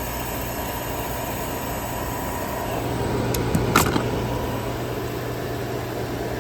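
1959 Welbilt Wall-Slim heat pump running with a steady hum and fan noise, while its pressures equalize after being switched back from heat mode. A sharp click comes a little before the middle.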